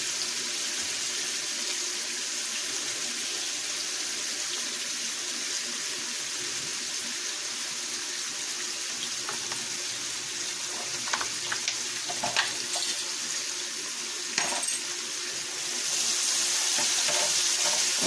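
Chopped onions sizzling in hot olive oil in a frying pan, a steady hiss, with a few clinks and scrapes of the stirring utensil past the middle. The sizzle gets louder near the end.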